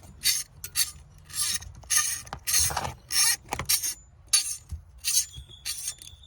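Repeated short rasping metal strokes, about two a second, from a hand tool working the nut on the old bonnet release cable.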